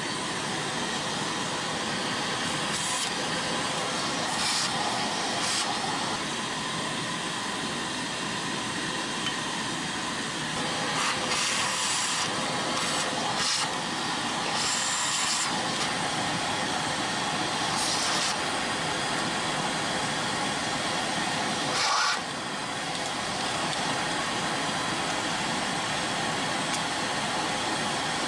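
A vacuum cleaner running steadily, sucking carbon gunk scraped loose with a small screwdriver out of clogged EGR ports in an intake manifold. Its steady whoosh is broken now and then by brief louder, hissier moments.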